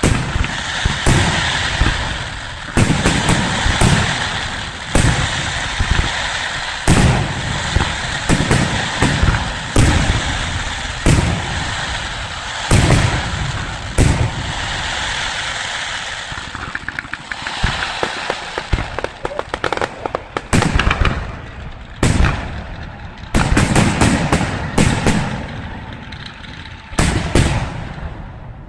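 Fireworks display: sharp bangs of bursting fireworks about once a second over a constant crackle. Quick clusters of bangs come in the last third, and the sound fades away at the very end.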